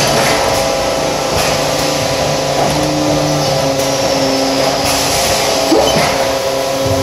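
Industrial thermoforming machine running: a loud, steady mechanical hum with several constant tones, broken by a few brief hisses and a short squeak about six seconds in.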